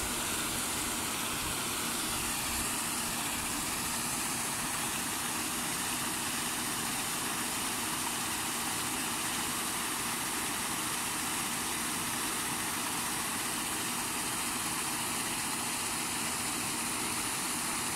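Paddle wheel aerator running steadily, its paddles churning and splashing the pond water in a constant rush of spray, with a low machine hum underneath.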